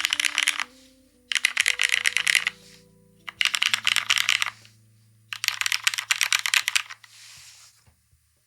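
Typing on a Bina 103 custom mechanical keyboard with an aluminium plate, linear Cherry MX Black Hyperglide switches and GMK keycaps: four bursts of rapid keystrokes with short pauses between them. Soft background music with low sustained notes plays underneath, and both fade out near the end.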